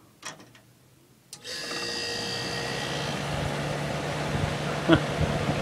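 Magic Chef 25-pint dehumidifier switched on: a short click, then about a second in it starts up suddenly and runs with a steady hum and air noise. Its fan motor is running slower than it should, a failing motor that overheats and slows almost to a stop.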